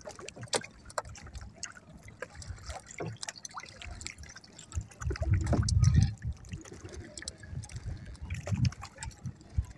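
Seawater splashing and trickling around a small wooden outrigger canoe, with scattered small knocks and clicks, and a louder dull low rumble about five seconds in.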